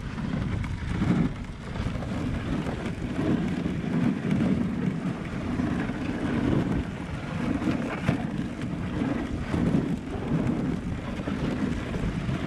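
Dog sled running over a packed snow trail: the runners scrape and rumble on the snow, with wind buffeting the action camera's microphone.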